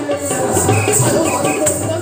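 Live music: a wavering melody over a steady rhythm of jingling percussion and a low beat.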